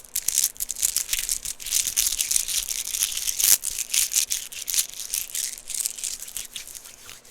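A stack of bead bracelets on a wrist shaken and moved close to the microphone, beads clicking and rattling against each other in a dense run of small clicks.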